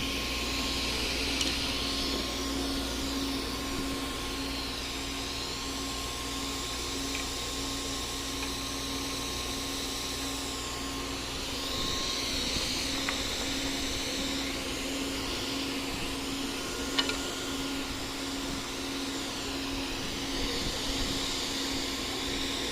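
14-inch tilting-arbor table saw running steadily, its 2 HP single-phase motor and spinning blade giving a constant hum under a shifting whooshing hiss while a board is crosscut. A couple of brief knocks come about two thirds of the way in. The saw has freshly replaced arbor bearings.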